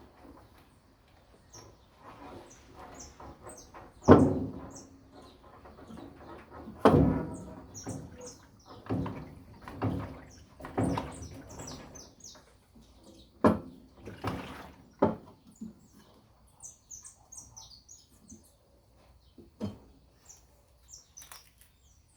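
Irregular knocks and clanks of tools and metal parts being handled while a washing machine is taken apart, with the loudest strikes about four and seven seconds in. Small birds chirp in short high notes throughout.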